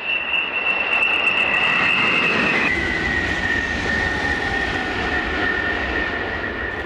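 High-speed electric trains passing close by: a loud rush of wheels and air with a high steady whine. About two and a half seconds in, the sound changes abruptly to a Renfe S130 (Talgo 250) going by, its whine lower and slowly falling in pitch as it passes.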